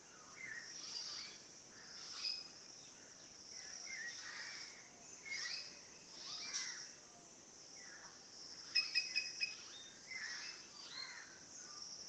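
Songbirds chirping and singing in short warbled phrases over a steady high-pitched drone. About nine seconds in, a quick run of about five sharp notes is the loudest sound.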